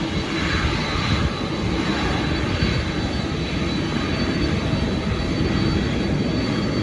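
Airliner engines running with a steady, even roar that is heaviest in the low range, and a faint high whine over it.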